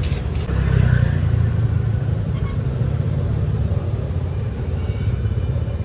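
Steady low rumble of motor vehicle engines running, as in street traffic, with a couple of light clicks.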